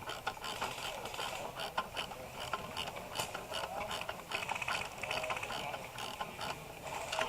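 Irregular small mechanical clicks and rattles, with a quick run of clicks a little after three seconds in.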